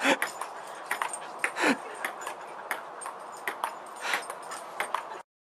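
Ping-pong ball clicking rapidly as it bounces back and forth across an outdoor table, with a dog's voice heard briefly twice, sliding down in pitch. The sound cuts off abruptly about five seconds in.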